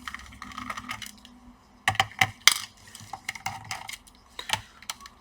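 Screws being taken out of a laptop's bottom cover: a string of small sharp clicks and metallic clinks from the screwdriver and the loose screws, the loudest pair about two seconds in.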